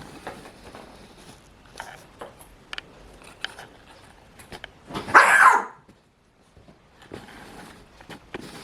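Ping pong ball clicking and skittering on a hard floor as kittens bat it about, in scattered light taps. About five seconds in comes one louder rushing burst, under a second long.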